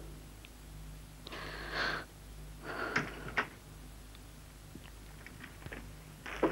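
A woman's two heavy, breathy sighs, about a second apart, over a faint steady mains hum, with a sharp click near the end.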